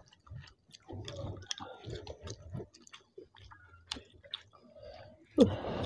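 Close-miked chewing of soft khichuri eaten by hand, two people's wet mouth clicks and lip smacks coming thick and irregular. Near the end there is a short, louder vocal sound that falls in pitch.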